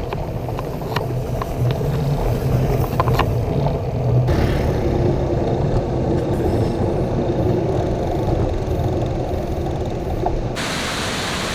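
A low, steady motor-vehicle rumble with a low engine-like hum, its character changing abruptly about four seconds in. About a second before the end it cuts to the even, full-range rush of a waterfall.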